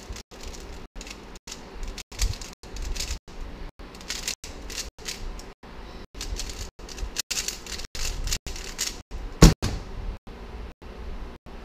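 Plastic Rubik's cube pieces clacking in quick flurries as a 3x3 cube is turned fast during a speedsolve. About nine and a half seconds in, one sharp loud slap as the cube is set down and the hands hit the StackMat timer pads to stop the time.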